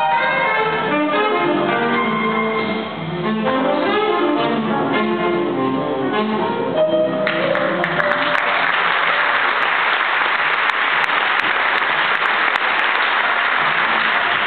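A jazz big band with saxophones and brass plays the closing bars of a tune, ending on a held note about seven seconds in; the audience then applauds for the rest of the time.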